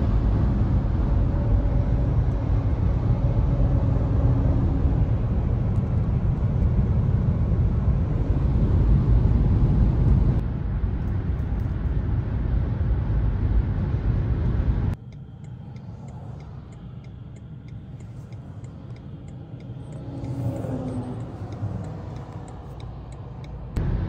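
Road noise inside a moving car: a steady low rumble of tyres and engine at highway speed. About fifteen seconds in it drops abruptly to a much quieter hum.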